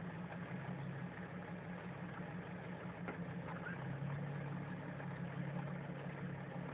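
Toyota Hilux pickup's engine idling steadily, a low even hum that grows a little stronger about halfway through.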